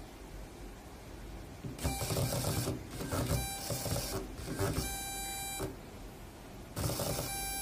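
Samsung Galaxy A80's motorised rotating pop-up camera whirring in four short bursts, each under a second, starting about two seconds in.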